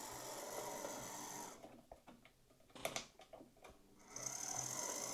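Jouef TGV model locomotive's motor bogie running on the track with a steady mechanical whir and hum. The sound drops away about a second and a half in, with a single click near the middle, and the whir starts again about four seconds in.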